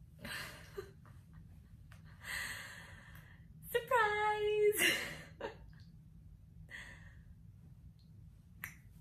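A woman's breathy sighs and exhalations, with a short high-pitched wordless vocal sound about four seconds in, the loudest part.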